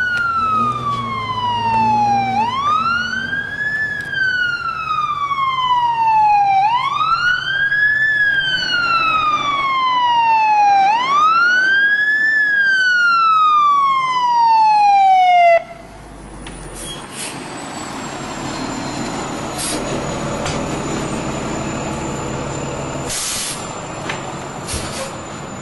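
Emergency vehicle siren wailing loudly, its pitch climbing quickly and falling slowly about every four seconds, then cutting off abruptly about 15 seconds in. After it, a quieter steady rumble with a few sharp knocks and a faint high steady tone.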